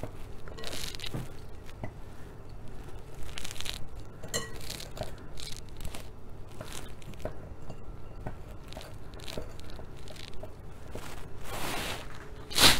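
Handfuls of shredded boiled chicken dropped into a frying pan of thick sauce and stirred with a wooden spoon: soft rustling and squelching, with light scrapes and small clicks of the spoon against the pan. A louder rustle comes near the end.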